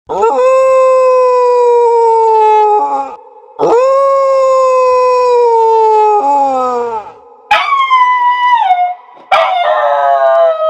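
Husky howling: two long, held howls that sag slightly in pitch, then, from about halfway, two shorter, higher howls that slide down in pitch.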